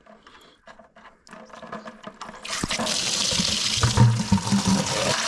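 Evapo-Rust solution gushing out of a tractor radiator as it is drained, starting about two and a half seconds in and running steadily.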